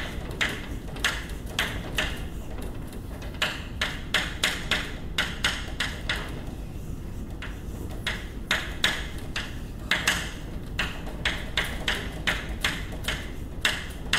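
Chalk tapping and scratching on a blackboard as formulas are written: a quick, uneven run of sharp taps, several a second, with a pause of about two seconds near the middle.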